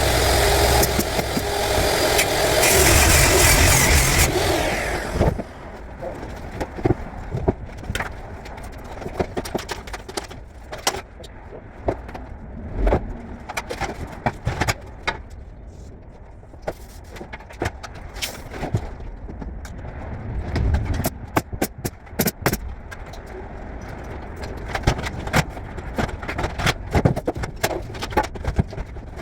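Carpentry work: a loud power tool runs for the first four to five seconds and cuts off, then scattered sharp knocks and clicks from tools and wood being handled.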